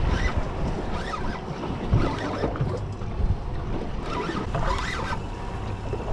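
Wind buffeting the microphone and sea water slapping against the boat's hull, with a spinning reel being wound in against a hooked fish. A few short splashing noises stand out over the steady low rumble.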